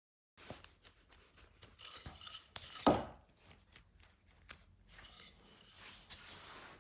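Wooden pieces and hand tools being handled on a workbench: scattered light taps and clicks with stretches of rubbing, and one louder knock about three seconds in.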